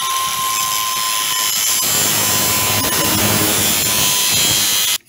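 Angle grinder with a thin cut-off wheel running and cutting through a knurled TIG torch handle. It is a loud, steady hiss over a faint whine, with a heavier grinding sound through the middle as the wheel bites into the handle, and it stops abruptly near the end.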